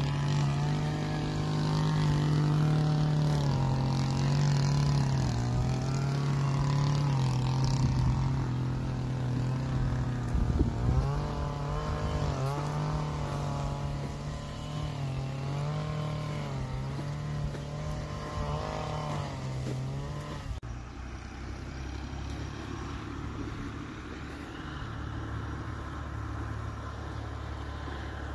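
A motor vehicle running steadily, with a low drone and a wavering whine over it; about twenty seconds in the sound changes abruptly to a lower, steadier drone.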